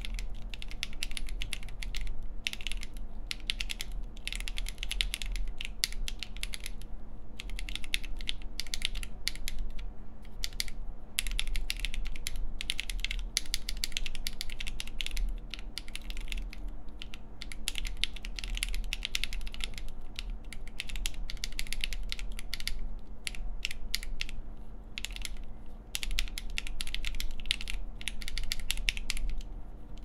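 Typing on an ai03 Altair-X split mechanical keyboard with Gateron Baby Raccoon linear switches in a full polycarbonate plate, with stock springs and GMK keycaps. A fast, steady run of keystrokes broken by a few short pauses.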